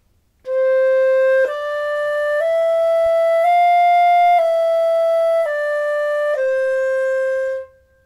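Solo flute playing a slow C major scale exercise: C, D, E, F up and back down to C, each note about a second long, with the final C held longer.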